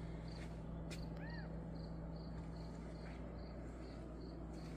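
Quiet background with a steady low hum, a faint high chirp repeating a few times a second, and one short rising-and-falling chirp about a second in.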